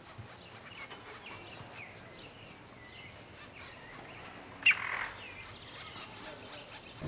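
Birds calling: rapid high chirps and short rising notes, with one loud harsh call a little under five seconds in.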